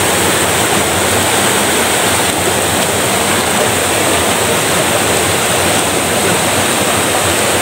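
Shallow rocky stream rushing and splashing over stones close by, a steady loud rush of water.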